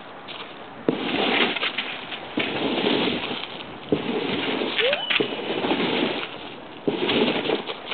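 A noisy object shaken in four sharp-starting bursts of rustling noise, each about one to two seconds long.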